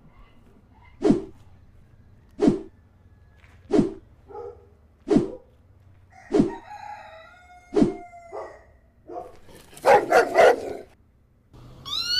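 Rubber chicken squeeze toy squawking in short, sharp bursts, about one every second and a half. Near the end comes a longer, denser squawk, then a pitched squeal that rises and falls.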